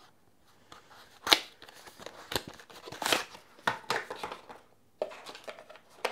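SSD retail packaging, a box with a clear plastic tray, being opened and handled: irregular sharp crackles and clicks, the loudest about a second in.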